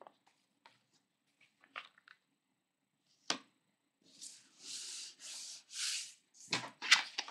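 Hands rubbing glued book-page strips flat onto paper: a few small paper clicks, then four quick swishing strokes of hand on paper, and more paper handling near the end.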